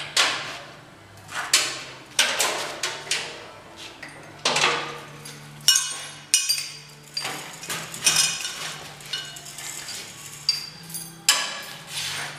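Metal clanks and chain rattling from a shop engine hoist and its lifting chain being handled: about a dozen sharp, irregular clanks, some with a metallic ring, over a steady low hum.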